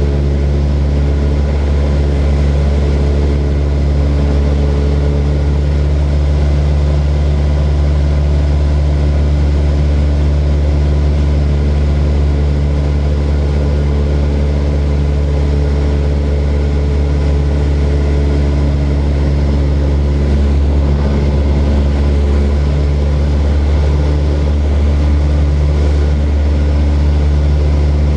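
A small propeller plane's engine running steadily: a constant low hum that holds the same pitch throughout.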